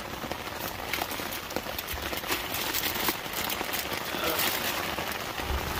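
Rain pattering on a nylon tent, heard from inside: a steady hiss of many small drops striking the fabric, with no break.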